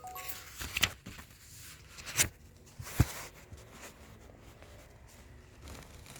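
Quiet room with a few short knocks and clicks, three in all, the sharpest about three seconds in.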